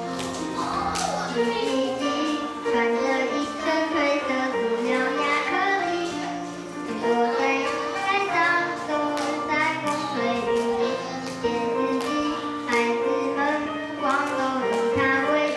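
A song with instrumental backing and a child's voice singing.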